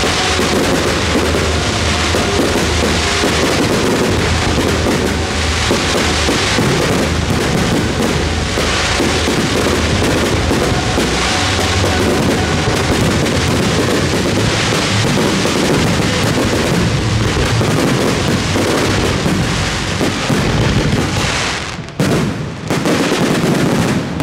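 Dense, continuous barrage of fireworks bursts crackling and exploding, with show music playing underneath. The din dips briefly about 22 seconds in, then picks up again.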